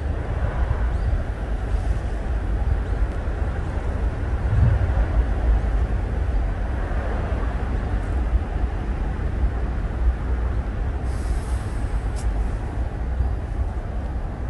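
Steady low outdoor rumble with no distinct events, and a short hiss about eleven seconds in.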